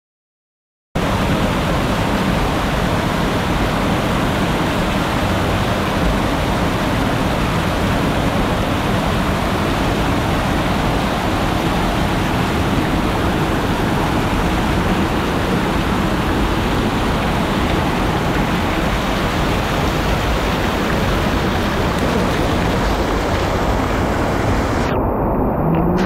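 Waterfall rushing: a loud, steady hiss of falling water that starts abruptly about a second in. Near the end the high part of the hiss drops away.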